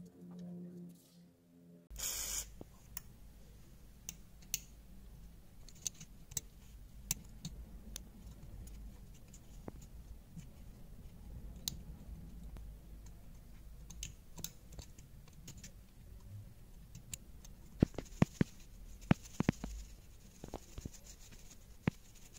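Metal pick scraping and ticking inside a phone's Lightning charging port as packed lint is dug out: faint scattered clicks over a low steady hum, with a run of sharper clicks near the end.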